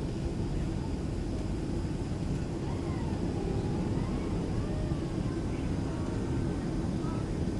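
Steady cabin roar of a Boeing 767-300 airliner in flight: engine and airflow noise inside the passenger cabin, heavy and even in the low range, with faint voices now and then.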